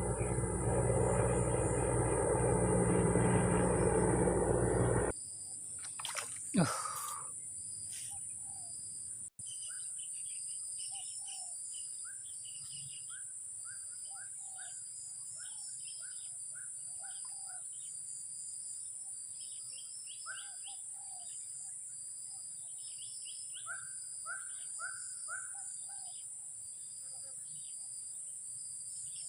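Aircraft engine noise overhead, loud and steady, which cuts off abruptly about five seconds in. A short falling swish follows, then birds chirping repeatedly over a steady high insect buzz.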